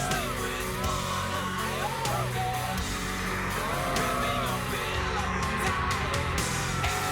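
Background song with a sung vocal melody over guitar and a steady low bass line.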